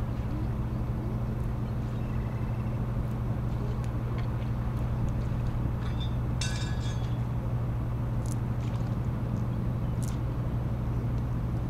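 Steady low mechanical hum of an idling engine, unchanging throughout, with a few brief high chirps about six and a half seconds in.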